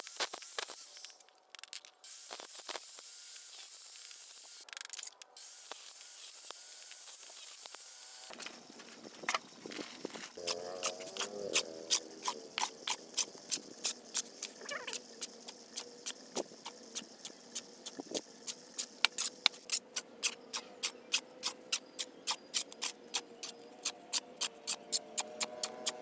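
Angle grinder cutting a hollow clay brick, a steady high hiss with two short breaks, which stops abruptly about eight seconds in. After that comes a train of sharp ticks, a few a second, coming faster in the second half.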